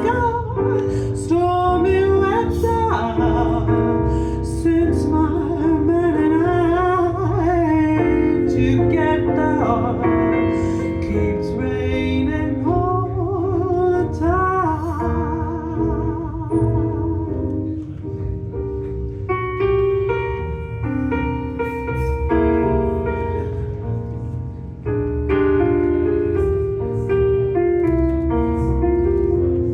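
Live jazz-standard performance: a singer holding notes with wide vibrato over piano and a low bass line, giving way after about fifteen seconds to mostly piano chords.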